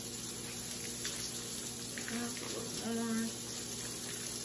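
Chicken breasts frying in olive oil in a nonstick pan, a steady sizzling hiss.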